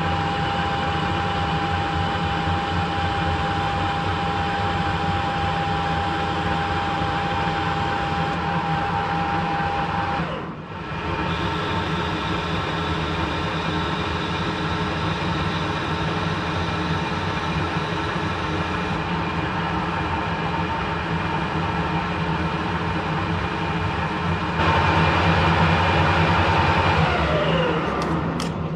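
Harrison metal lathe running, turning hex bar down into pins: a steady mechanical whine with several tones. It gets louder for a couple of seconds near the end, then the pitch falls as the spindle winds down.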